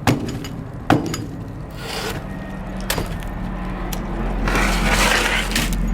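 Three sharp wooden knocks: one right away, one about a second later and one about three seconds in. They are followed near the end by a rushing noise.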